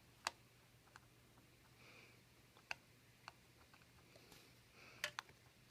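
Faint, scattered sharp clicks of a small magnetic screwdriver and tiny screws tapping against the iPhone's metal internals, about five of them over a quiet room.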